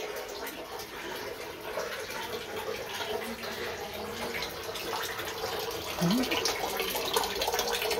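Steady rushing noise in a small tiled room, with light handling clicks.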